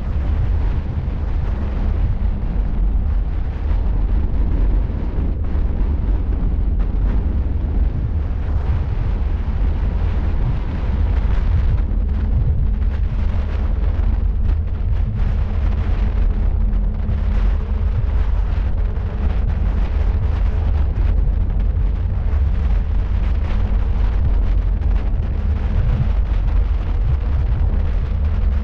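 Wind rushing over the microphone of a camera mounted on the roof of a moving car at road speed: a loud, steady low rumble and buffeting, with a faint steady hum underneath.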